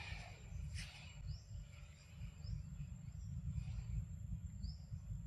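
Outdoor ambience: a few short rising bird chirps, one near the start, one mid-way and one near the end, over a steady low rumble, with a thin steady high tone and a couple of soft rustles.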